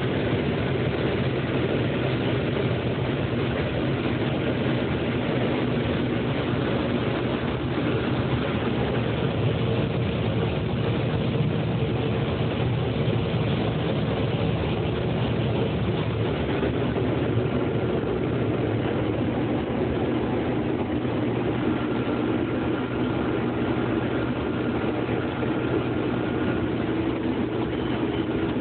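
Heavy diesel harvest machinery running steadily under load, a constant low engine drone, with a faint high whine coming and going in the second half.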